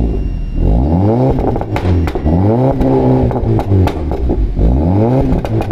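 Audi A4 exhaust, its two resonators replaced by cylinder resonators and the stock muffler kept, as the engine is revved three times. Each rev climbs in pitch and falls back to idle.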